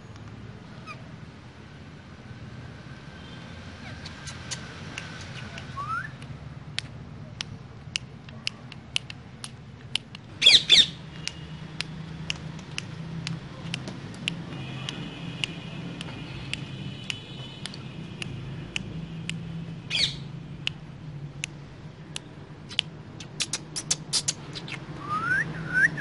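Ringneck parakeets squawking: one loud screech about ten seconds in, another about twenty seconds in, and short rising chirps near the end, over many scattered sharp clicks and taps.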